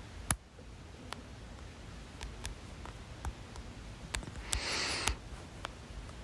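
A person hiccuping: one sharp, sudden hiccup just after the start, then faint mouth clicks and a short breathy rush of air about four and a half seconds in.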